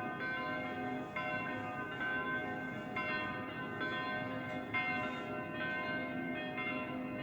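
Church bells pealing together, with a new strike about every second and each ringing on into the next.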